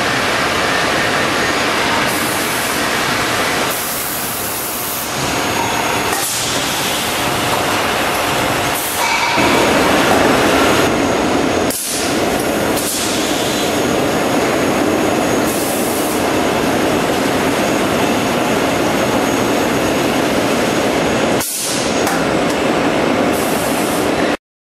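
Loud, steady running noise of packing machinery on a concrete roof tile line, where a film-hooding machine pulls a plastic hood down over a stacked pallet of tiles. The noise grows fuller about a third of the way in, dips briefly three times, and cuts off suddenly just before the end.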